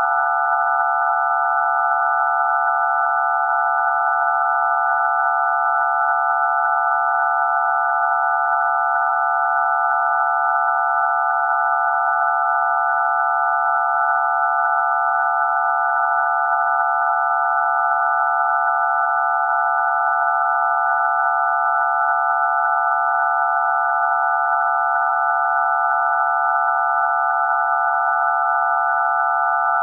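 DTMF telephone keypad tones for digits 0 to 9 all sounding at once as one steady, unbroken chord of pure tones, a dense buzzing cluster of the low and high keypad frequencies with no change in pitch or level.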